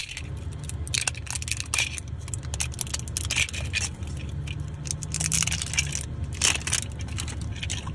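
Crinkling and scraping of a clear plastic wrapper as a toy truck is pulled out of it by hand, with irregular crackles and clicks, over a steady low hum.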